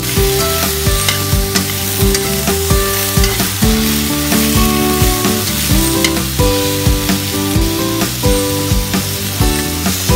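Squash and string beans sizzling in a hot wok as they are stirred, under background music with shifting notes and a steady beat.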